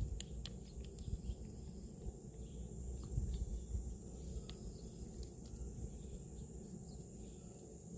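Small scattered clicks and smacks of a cat licking a Churu paste treat, over a steady high insect drone.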